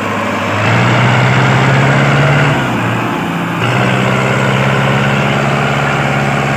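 Sonalika DI 750 III tractor's four-cylinder diesel engine labouring under load in the mud. Its note rises about half a second in, sags briefly around three seconds, then picks up again. The tractor is complained of as having no pulling power.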